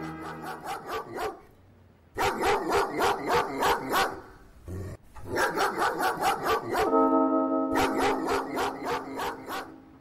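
Dog barking in quick runs of short, sharp barks, about three or four a second, with two brief pauses. Background music plays under it.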